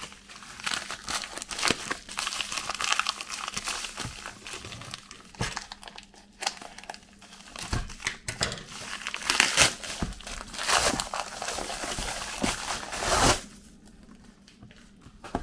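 Packaging being unwrapped by hand: irregular crinkling, crackling and tearing of wrapping, dying away near the end.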